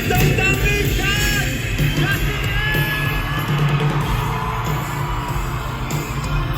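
Live band playing an instrumental passage over a steady bass and beat, with whoops and yells rising from the audience in the first couple of seconds.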